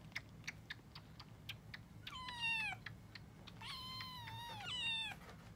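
Kittens meowing: a short meow about two seconds in, then a longer, wavering meow near the end. In the first two seconds there are small, quick clicks of a kitten suckling at a milk bottle's nipple.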